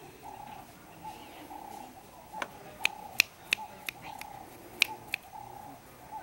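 About eight sharp clicks or snaps, clustered from about two and a half to five seconds in, the loudest near three and five seconds. Behind them a short call repeats steadily in the background.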